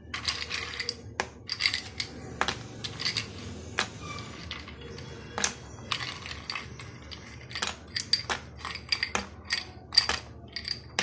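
Ice cubes dropped by hand into a glass blender jar of milkshake, making a series of sharp, irregular clinks against the glass.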